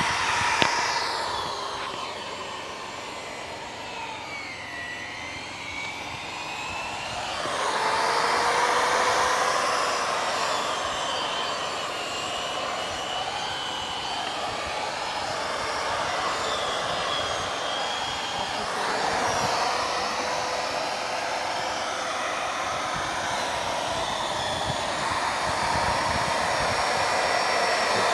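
Corded electric drill running as it bores into a palm trunk. Its whine sinks in pitch and quietens for a few seconds as the bit bogs down, then rises and grows louder again about eight seconds in and holds steady.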